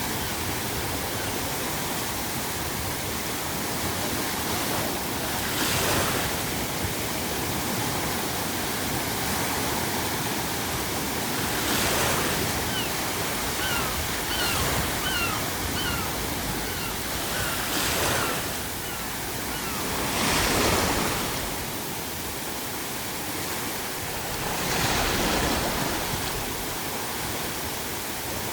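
Ocean waves breaking every five or six seconds over a steady hiss of pink noise. Midway, a gull calls in a run of about eight short, rising cries, roughly one a second.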